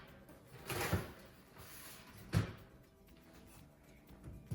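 Oven door and metal cookie sheet being handled as the tray goes into the oven: a knock about a second in, a short rustle, then a sharper, louder knock.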